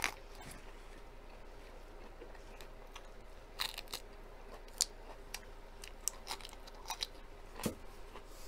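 A crisp lettuce leaf bitten with a sharp crunch at the start, then bitten again and chewed, with scattered short crunches through the rest.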